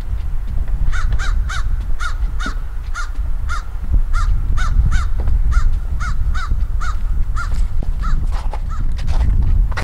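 Crows cawing: a long run of short, harsh caws, about two a second, that stops near the end, over a steady low rumble.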